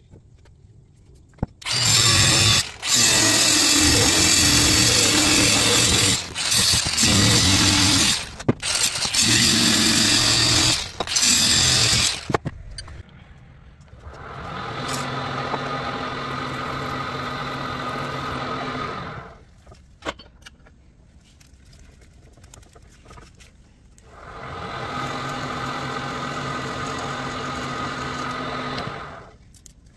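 Angle grinder cutting a steel flat bar: a loud, harsh run of cutting, broken by a few short pauses, for about ten seconds. Then a milling machine's spindle hums steadily in two runs of about five seconds each, spot-drilling and then drilling a hole in steel held in a vise.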